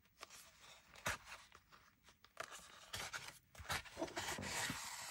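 Ribbon rubbing as it is drawn through the holes of a thick stack of paper journal pages, with paper rustling and a light tap about a second in.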